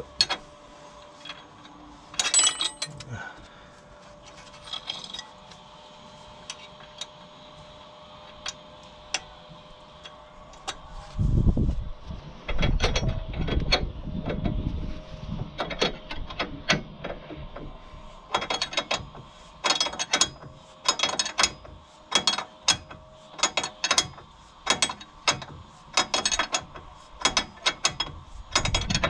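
A hand spanner and Allen key working a nylock nut onto a track rod end's stud: metal tools clicking against the nut and stud in short strokes as the nut is tightened while the stud is held from turning. Heavier knocks and rubbing come about a third of the way in, and the clicks settle into a steady run of about one or two a second in the second half.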